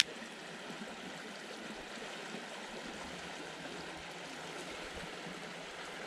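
Steady, even hiss of creek water running, with one sharp click at the very start.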